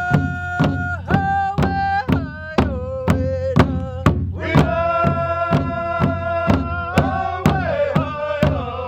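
Wabanaki drum group singing around one large shared drum: a steady beat of about two strokes a second under voices holding long notes that shift pitch every second or two.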